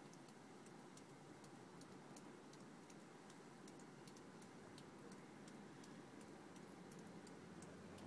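Near silence with faint, irregular ticking, a few small clicks a second over a low background hiss.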